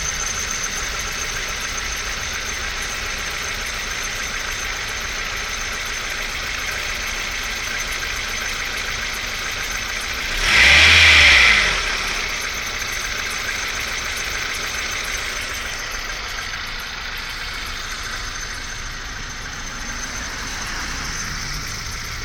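1998 Honda CR-V four-cylinder engine idling cold, with a steady high squeal from the belt-driven accessories that the owner suspects is the AC pump pulley. About halfway through, the engine is revved once briefly and drops back to idle.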